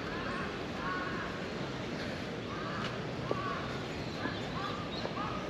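Crows cawing, a string of short calls every half second to a second over a steady background hiss.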